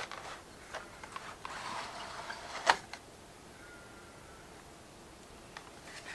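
Handling of the model locomotive's packaging and paperwork: scattered light clicks and a soft rustle, with one sharp click near the middle.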